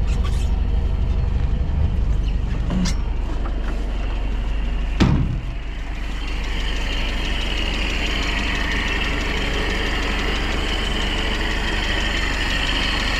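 Land Rover Series III pickup's four-cylinder engine idling steadily. A single thump comes about five seconds in, after which a steady higher hiss runs over the idle.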